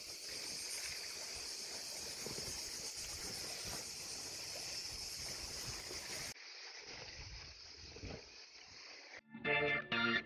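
Cicadas buzzing in a steady high chorus. About six seconds in, the sound cuts to a quieter hiss, and music starts near the end.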